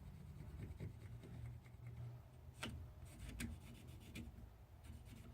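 Faint scraping of a hand carving blade on birch wood, with a few light clicks in the middle, over a low steady hum.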